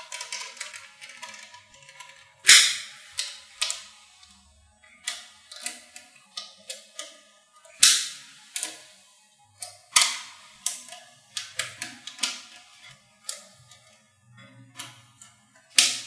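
Small magnet balls clicking as they snap onto a slab of other magnet balls: an irregular run of sharp clicks, a few much louder snaps among them.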